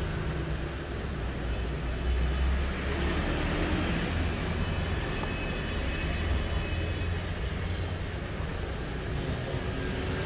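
Steady low rumble and hiss of background noise.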